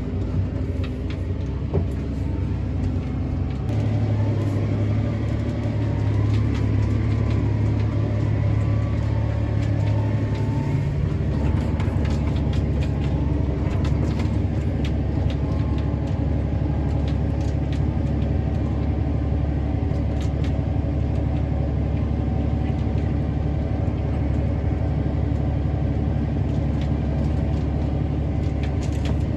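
Tractor engine running steadily under load, pulling a speed disc through the soil, with faint scattered clicks. The engine note changes slightly about eleven seconds in.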